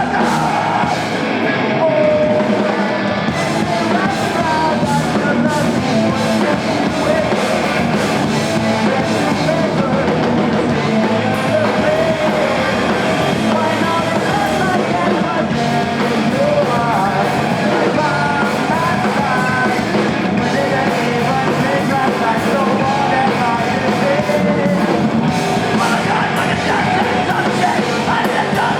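A rock band playing live, loud and continuous, with a voice singing over the instruments.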